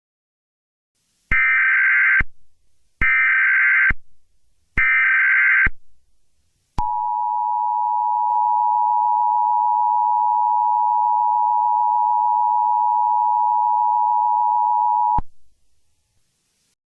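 Emergency Alert System tones: three short bursts of header data, each about a second long, then the two-tone attention signal held steady for about eight seconds before it cuts off suddenly. The tones announce the start of an emergency alert broadcast.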